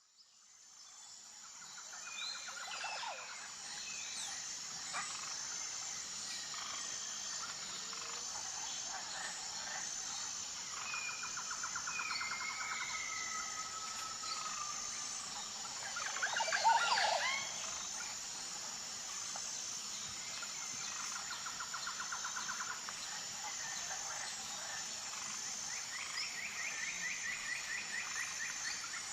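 Forest ambience fading in over the first couple of seconds: a steady high-pitched drone with a regular pulse, under assorted bird calls, chirps and trills. The loudest call comes about 17 seconds in.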